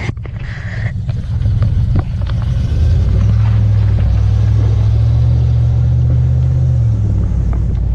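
A 4.8-litre V8 pickup engine running with a steady low rumble. It grows louder about three seconds in, holds at a constant pitch, then eases off near the end.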